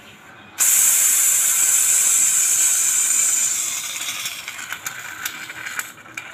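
Aerosol can of Koby tire sealant discharging through its hose into a scooter tire's valve: a loud hiss that starts suddenly about half a second in, then weakens and sputters in the last couple of seconds as the can runs empty.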